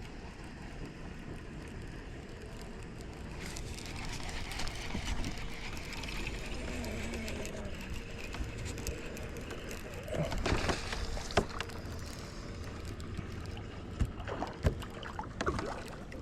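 Water sloshing and lapping against a kayak, with a few sharp knocks on the hull in the last third.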